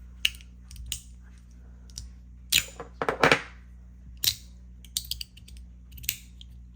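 S-Nano magnetic metal push slider fidget being slid end to end, snapping into place with sharp clicks at an irregular pace, several in quick succession about three seconds in.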